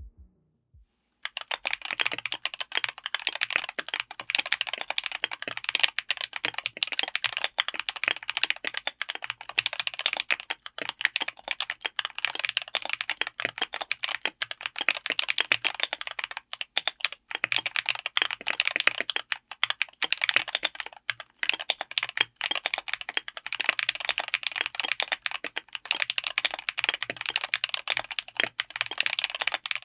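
Fast typing on a mechanical keyboard fitted with Gateron EverFree Grayish heavy tactile switches, on a 60% board with an FR4 plate in an aluminium case. A dense run of key strikes starts about a second in and goes on with brief pauses.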